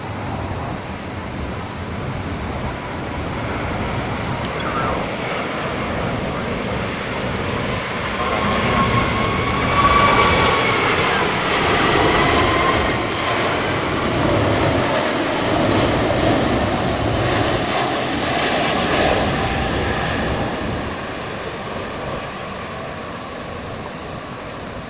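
Boeing 777 airliner's jet engines on final approach, passing low overhead: a roar that builds to its loudest about ten seconds in, with a whine that drops in pitch as the aircraft goes by, then slowly fades as it heads away toward the runway.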